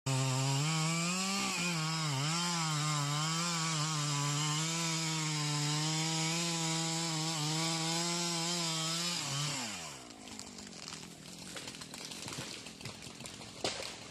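Two-stroke chainsaw running at high revs, its pitch dipping and recovering as if loaded in a cut. About nine and a half seconds in, the throttle is let off and the revs fall away. Quieter scraping and knocking follow, with one sharp knock near the end.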